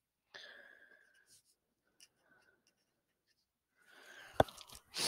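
Felt-tip marker writing on paper: faint, short scratchy strokes in spurts, with a sharp click a little over four seconds in and a louder brief rush of noise at the very end.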